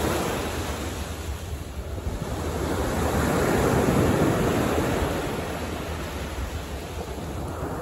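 Ocean surf breaking and washing up a sandy beach. The noise swells to its loudest about four seconds in as a wave crashes, with wind rumbling on the microphone.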